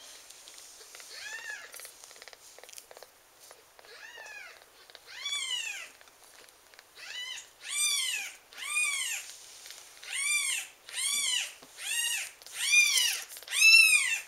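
A week-old Ragdoll kitten squealing for milk: about a dozen high-pitched cries, each rising and falling in pitch. The cries are faint and spaced out at first, then from about halfway come louder and quicker, roughly one every 0.7 seconds.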